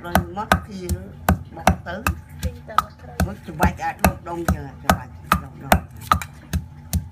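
Wooden pestle pounding chopped lemongrass in a heavy stone mortar: a steady rhythm of thuds, about two and a half strokes a second.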